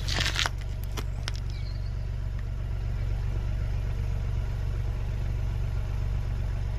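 Audi A1's 1.0-litre three-cylinder petrol engine idling steadily, in a car with misfire codes after a spark plug change. A few sharp clicks sound in the first second and a half.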